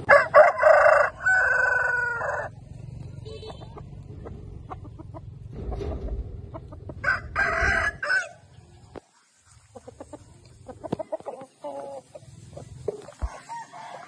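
Rooster crowing loudly, a long crow in two parts at the start, then a shorter crow about seven seconds in, with softer clucking calls near the end.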